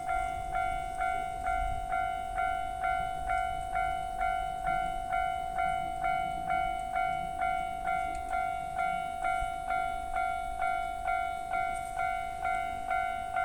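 Japanese railway level-crossing warning bell ringing steadily, about two strikes a second, each strike a clear ringing tone that fades before the next. It is the alarm that warns of an approaching train.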